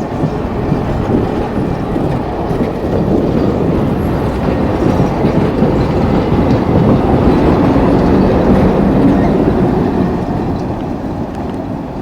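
Cuyahoga Valley Scenic Railroad passenger train rolling past, a steady rumble with wheels clattering on the rails, swelling to its loudest about eight seconds in and then fading.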